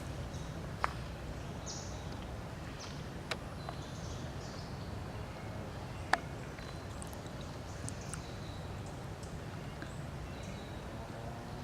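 Outdoor ambience: a steady low rumble with three sharp clicks, and scattered short, high chirps.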